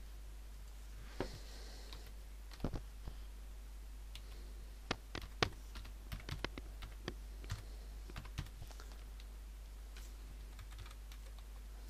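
Typing on a computer keyboard: irregular clusters of key clicks, with a steady low hum underneath.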